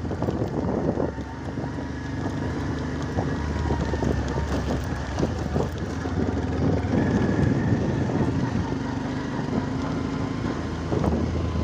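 A vehicle's engine runs steadily while it drives over a rough, broken road, with frequent knocks and rattles from the bumps.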